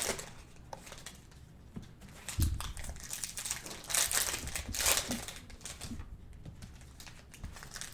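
Faint, irregular crinkling and rustling of foil trading-card pack wrappers being handled, with a soft knock about two and a half seconds in.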